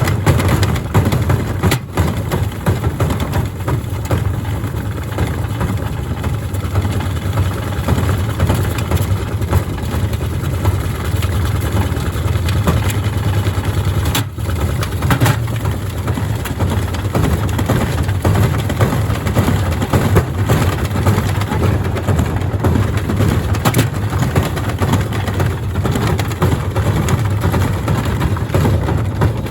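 Gorenje washing machine running with a load of heavy bricks in its drum: a loud, steady low rumble with irregular knocks and thuds from the badly unbalanced load.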